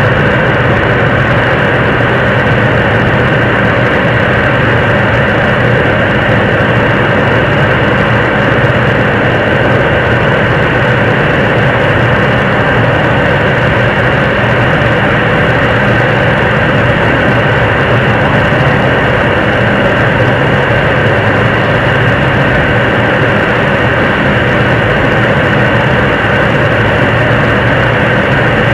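A 7-tonne-class liquid-propellant rocket engine, the Nuri launcher's third-stage engine, in a long steady burn on an altitude-simulation test stand. It makes a loud, even rushing noise with no change in level or pitch.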